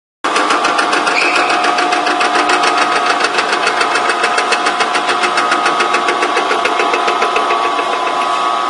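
Vertical milling machine cutting an aluminium block: a steady whine from the machine's drive with a rapid, even ticking as the cutter bites into the metal.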